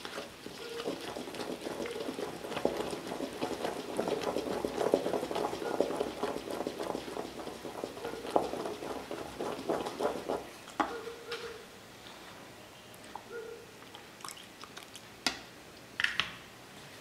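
A wooden-handled spatula stirring thick flour-and-milk crepe batter in a stainless steel bowl: a busy wet squelching and scraping with small clicks of the spatula against the bowl. The stirring stops about eleven seconds in, leaving a few separate taps.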